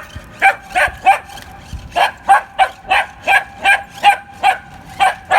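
Puppy barking in a rapid run of short, high yaps, about three a second, with a brief pause about a second in. The barking is set off by the sound and movement of a remote-control toy car.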